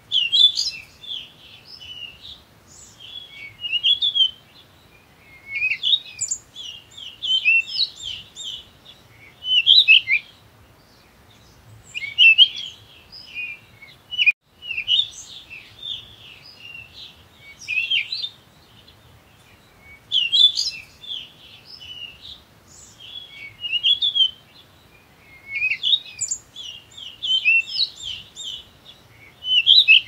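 Small songbird singing, short fast twittering phrases of high notes repeated every two seconds or so.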